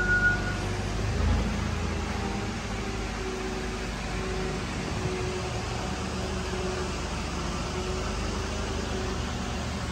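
Steady hum and hiss of shop fans or ventilation running, with a brief low thump about a second in.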